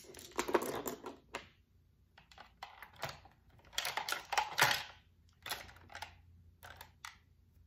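Makeup brushes being handled and cleaned by hand: irregular light clicks of brush handles knocking together, with short rustling, scrubbing bursts, the loudest about four to five seconds in.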